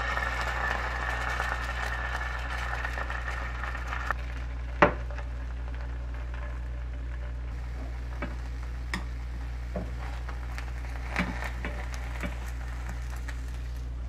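Beaten egg sizzling as it is poured into a hot, lightly oiled nonstick frying pan, the sizzle dying away after about four seconds. A sharp knock follows about a second later, then a few light taps of wooden chopsticks against the pan as the thin egg sheet is spread and lifted, over a steady low hum.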